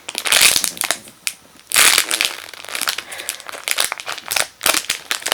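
Crinkling and rustling as a macaron squishy is handled and squeezed close to the microphone: two denser bursts in the first couple of seconds, then scattered crackles and clicks.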